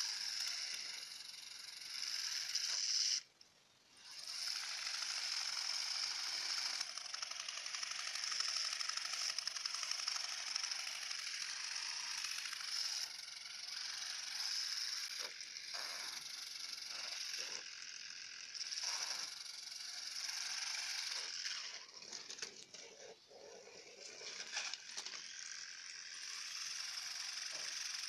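Small DC motor of a homemade toy car running with a steady high whir, cutting out for a moment about three seconds in and turning uneven and stop-start near the end.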